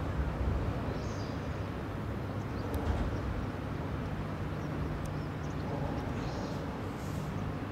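Steady low drone of a large bulk carrier's engine as the ship passes close by, with birds chirping briefly a few times over it.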